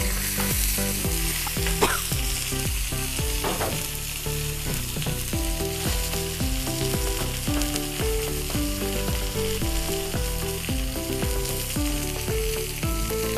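Indian mackerel sizzling in oil on a hot tawa, a steady frying hiss. In the first few seconds a metal spatula scrapes the pan a few times as the fish are turned.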